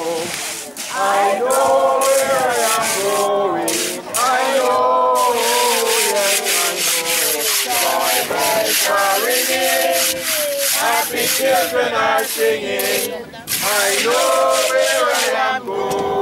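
Voices singing a slow hymn in long held notes, with a rough scratching, rasping noise over the singing.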